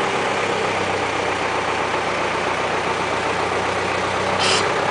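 Engine idling steadily, powering the hydraulics of a tractor-mounted hydraulic soil-sampling probe as the probe lifts out of the ground. A brief hiss sounds about four and a half seconds in.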